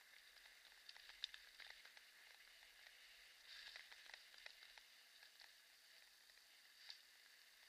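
Near silence: a faint steady hiss with scattered small ticks and crackles, a little busier about halfway through.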